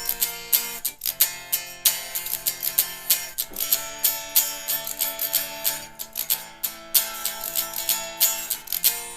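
Acoustic guitar strummed in a steady rhythm, the chord changing every second or two.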